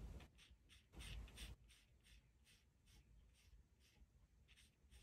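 Faint short strokes of a graphite pencil sketching on paper, about two or three a second, with a longer scratchy stroke about a second in.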